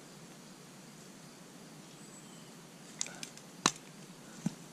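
Low background, then from about three seconds in a few short sharp clicks, one much louder than the others, from a hand caulking gun as it is squeezed to push sealant onto a sheet-metal seam.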